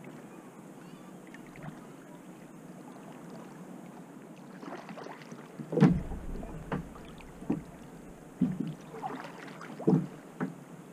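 Kayak paddle strokes dipping and splashing in open lake water, starting about halfway through at roughly one stroke a second, the first stroke the loudest.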